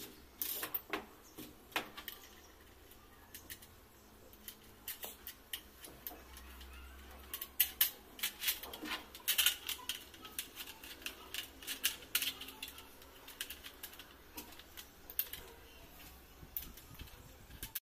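Irregular clicks, taps and light knocks of aluminium bars being handled and slid into the plastic corner joints of an adjustable frame stand, coming most densely through the middle.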